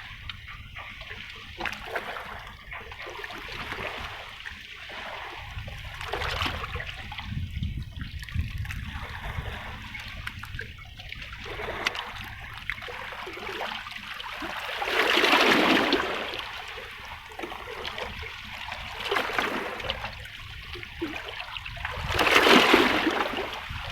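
Seawater lapping and trickling against breakwater rocks, with two louder waves washing in and draining away, one a little past the middle and one near the end.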